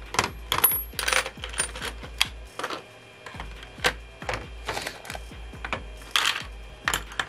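Small metal tools and hardware (screws, step drill bits, batteries) being dropped and set into 3D-printed plastic organiser compartments in a metal toolbox tray: an irregular run of sharp clicks and clinks.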